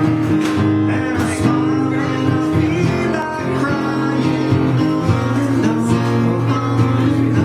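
Live acoustic guitar strummed with a man singing into a microphone, a country-style song played in a small room.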